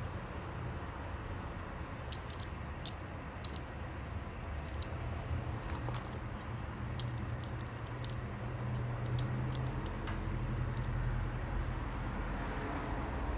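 Scattered light metallic clicks and clinks as small parts of a Baldwin mortise lock are handled and fitted, over a steady low rumble.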